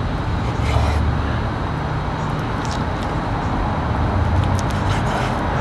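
Steady low rumble of distant traffic, with a few light clicks of a chef's knife striking a wooden cutting board as raw chicken breast is sliced.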